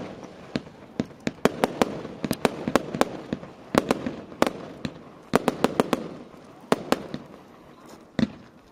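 Display fireworks bursting overhead: a rapid, irregular series of sharp bangs, some in quick clusters, with a continuous rumble of echoes between them.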